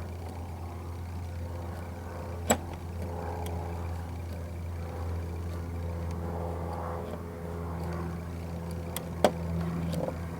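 A Phillips screwdriver working at a screw in a plastic interior car door handle, giving a few sharp clicks: one about two and a half seconds in and one near the end. Underneath runs a steady low hum.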